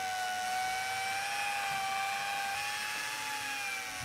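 Electric fishing reel's motor whining steadily as it winds in line, its pitch wavering slightly under the load.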